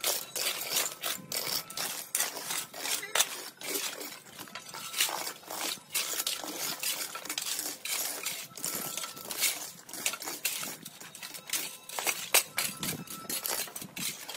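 Long-handled rakes and hoes scraping across packed dirt, raking up dry twigs and leaves: a busy, irregular run of scrapes and metallic clinks.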